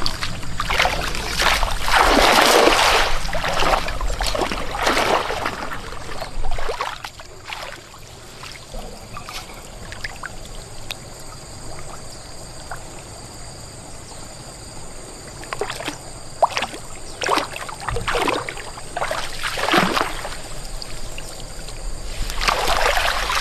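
Water splashing and pouring in surges of a second or two, with quieter trickling in between.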